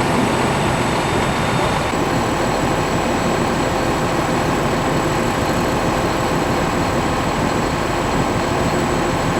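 Fire trucks' diesel engines running steadily at idle, a constant low rumble.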